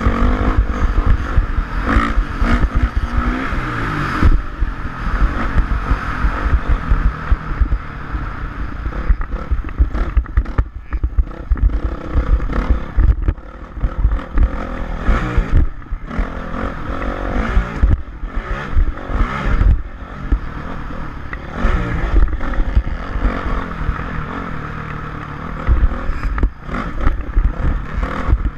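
Motocross dirt bike engine revving up and down as it is ridden, with wind buffeting the microphone and rattling clatter.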